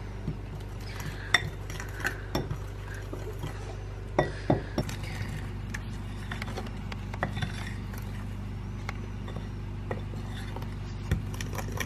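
A fork stirring pancake batter in a glass mixing bowl, the metal clinking and scraping against the glass in irregular taps.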